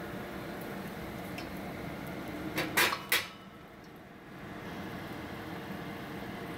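Egg-battered stuffed zucchini sizzling as it shallow-fries in hot oil in a pan. About three seconds in come two sharp knocks of the spatula against the pan as the piece is turned, and the sizzle drops for a moment before it picks up again.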